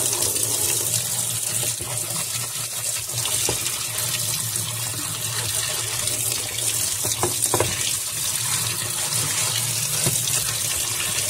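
Water running steadily and splashing in a semi-automatic washing machine's tub, with a steady low hum underneath and a couple of faint knocks midway.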